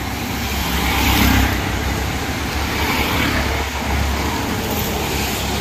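Road traffic passing close by on a wet road: car engines and tyre noise, a steady rumble that is loudest about a second in.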